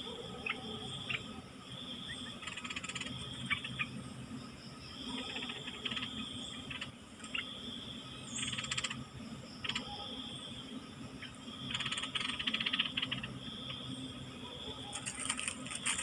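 Insects calling in repeated buzzing bouts, one about every two seconds, over a steady low hum, with a few sharp clicks near the end.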